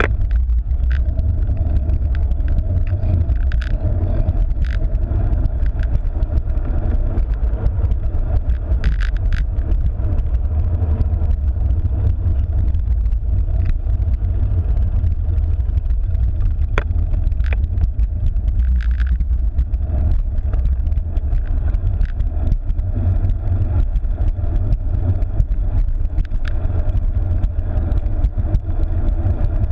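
Steady wind and road rumble on the microphone of a cyclocross bike being ridden, with scattered light clicks and rattles from the bike.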